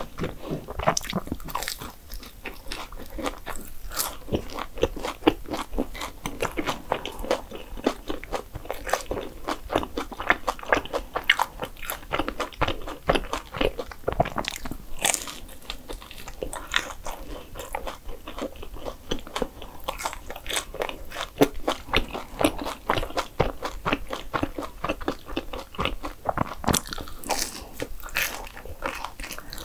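Close-miked eating: a person biting into and chewing desserts, a dense, continuous run of short clicks and mouth noises.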